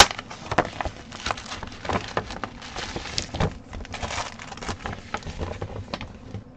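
Plastic packaging rustling and crinkling in irregular bursts as a cross-stitch kit is slid out of its clear plastic envelope and handled, with a sharp click right at the start.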